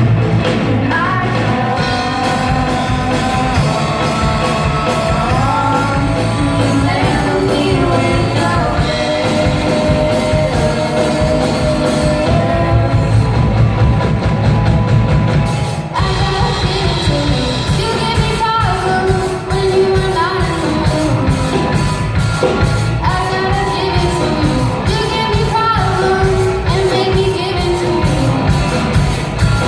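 Loud rock song with a sung lead vocal over a full band, with a short dip in level about 16 seconds in.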